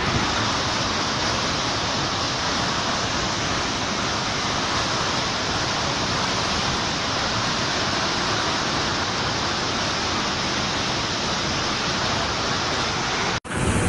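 Kempty Falls in flood, swollen by heavy rain: muddy water rushing over the falls as a steady, dense roar. The sound cuts out abruptly just before the end.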